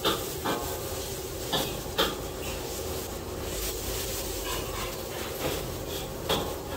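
Gurame (giant gourami) deep-frying in a large wok of hot oil: a steady sizzle and bubbling as the fish is moved with metal tongs. A few sharp clicks cut through, the loudest at the start and around two seconds in.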